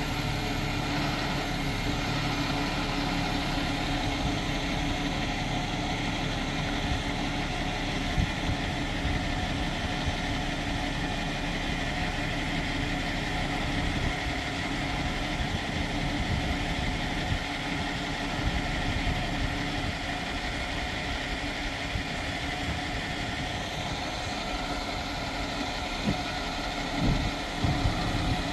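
Diesel engine of a boom-truck crane running steadily at idle while the crane is worked.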